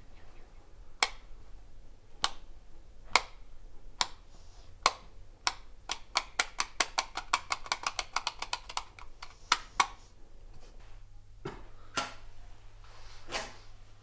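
A small wall switch clicked over and over by hand: single clicks about a second apart, speeding up to a fast run of about five or six clicks a second, then slowing to a few scattered clicks near the end.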